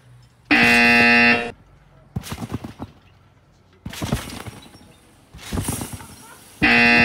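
A loud electronic buzzer sound effect sounds twice, once for about a second starting half a second in and again near the end, the kind of wrong-answer buzz that marks a missed trick. Between the buzzes come the thuds of bounces on a trampoline bed and its springs.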